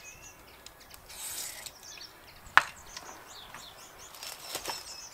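Handling sounds between hammering runs: a soft rustle about a second in and one sharp knock about two and a half seconds in, with a few lighter clicks. Birds chirp faintly in the background. The rotary hammer is not running.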